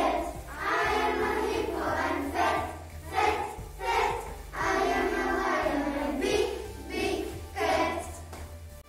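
A group of young children singing a song together over a music backing track, the voices fading out near the end.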